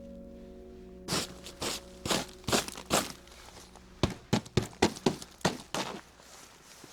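Footsteps crunching in snow, about a dozen steps at a walking pace, starting about a second in. A music note dies away at the start.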